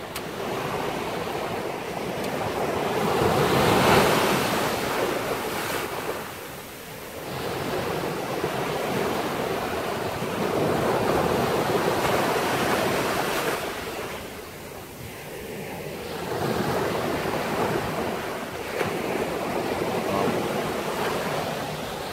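Ocean surf breaking and washing up the beach, rising and falling in long swells several seconds apart, with some wind on the microphone.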